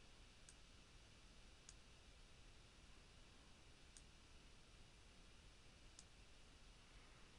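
Near silence broken by four faint, sharp computer mouse clicks spread across a few seconds.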